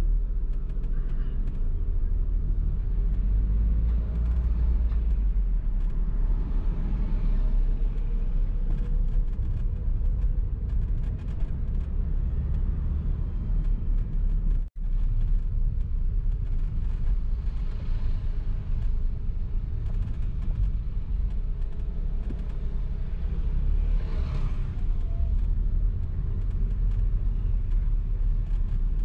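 Steady low rumble of a car driving in slow city traffic, engine and road noise, with a brief dropout about halfway through.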